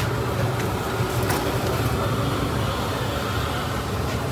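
Steady low mechanical hum with a few faint clicks over it.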